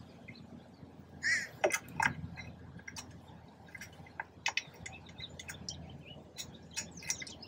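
Birds calling in the open air: one short call about a second in, and scattered brief high chirps. Faint clicks and taps run through it.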